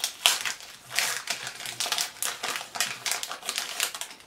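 Foil wrapper of a Pokémon trading card booster pack being torn open and crinkled: a dense, irregular run of sharp crackles, as the cards are pulled out of the pack.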